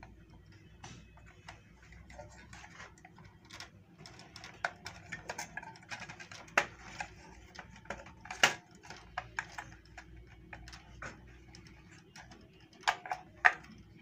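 Irregular clicks, ticks and small plastic snaps of hands unplugging and pulling out the fan motor's small black run capacitor and its wire connectors, with a few sharper snaps about halfway through and two near the end.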